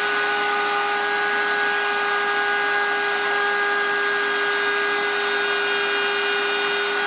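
Bosch 1617 router running at a steady full speed in a router table, a loud, even whine with no change in pitch, as a straight bit flush-trims a workpiece to its pattern.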